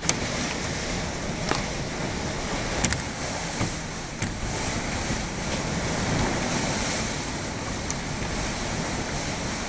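Hurricane wind and heavy rain rushing steadily, with a few faint clicks scattered through.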